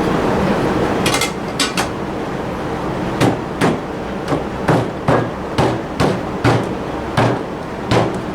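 A hammer tapping a metal lid back down onto a paint can: a few light clicks, then about ten sharp blows a little more than two a second.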